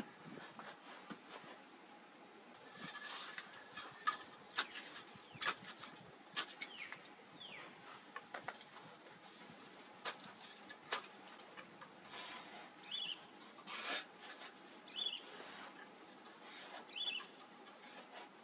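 Steady high insect trill, with scattered sharp knocks and clicks of hand tools working wood, and a few short bird chirps in the second half.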